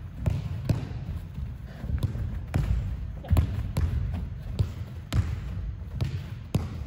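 Soccer ball being passed on artificial turf: repeated sharp knocks of the foot striking the ball and quick footsteps between passes, over a steady low rumble.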